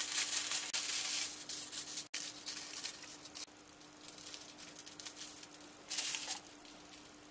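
Kitchen aluminium foil crinkling and rustling as a length is pulled from the roll and torn off, loudest in the first second or so, with a shorter burst of crinkling about six seconds in. A faint steady hum runs underneath.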